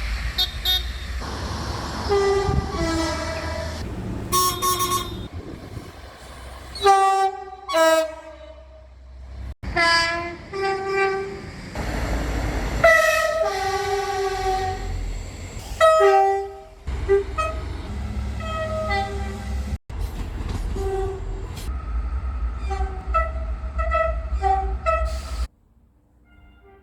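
Train two-tone horns sounding again and again in short blasts, alternating a high and a low note, over the rumble of moving trains. The sound breaks off abruptly several times between separate recordings.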